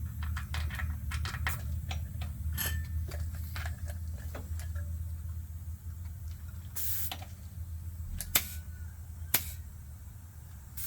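Tire pressure gauge being worked onto a bicycle tire's valve: light clicks and taps, a short hiss of air about seven seconds in, and two sharp clicks a second apart, over a steady low hum.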